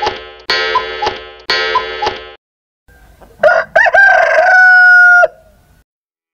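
Three ringing tones, one a second, each fading away, then a rooster crowing once, the loudest sound: a few short rising notes, then one long held note that stops abruptly.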